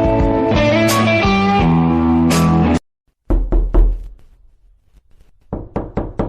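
Electric guitar music with a bass line, cut off suddenly. After a short silence, a deep thump with a few knocks, then a quick run of about five sharp knocks near the end.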